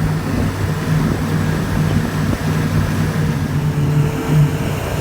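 Tour boat's motor running steadily with a low, even hum, under a haze of wind and water noise.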